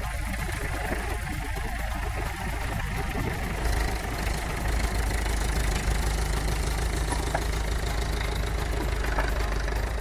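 Vintage tractor engine running steadily, getting a little louder about four seconds in.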